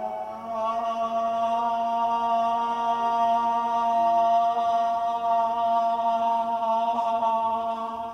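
Closing held chord of a ballad's backing music, sustained without a break; it swells about half a second in and fades out near the end.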